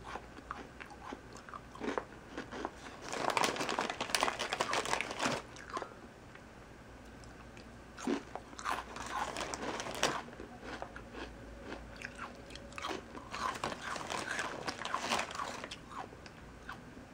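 Close-up eating sounds: a cookie being bitten and chewed with a crunch, in three spells of chewing separated by quieter pauses.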